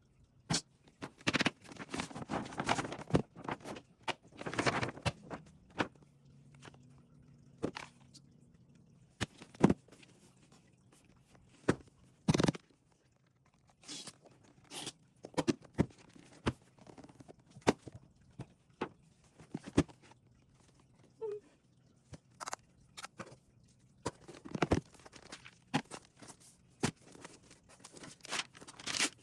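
A MacBook Pro's packaging being handled and opened: irregular clicks, taps and knocks on the box, with short spells of rustling and tearing of paper or plastic wrap.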